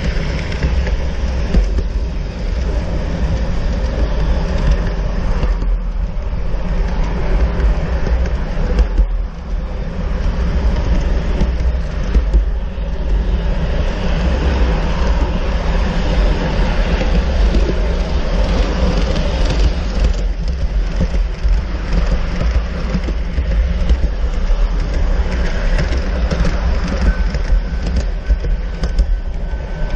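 LGB G-scale model train running along outdoor track: a steady rumble of wheels rolling on the rails with the hum of the electric motors, picked up by a camera riding on the train. A faint steady whine joins near the end.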